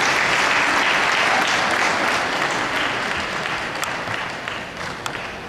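Audience applauding, dying away gradually over the few seconds.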